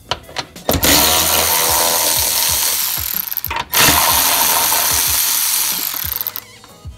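Milwaukee cordless ratchet running, backing out 10 mm bolts on a car's rear hatch. It runs in two long bursts with a brief pause about three and a half seconds in.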